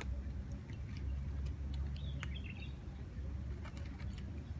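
Outdoor background noise: a steady low rumble with scattered faint clicks, and a brief high chirp about two seconds in.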